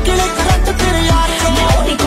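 Background music: a Punjabi pop song with a steady deep bass-drum beat under a melody.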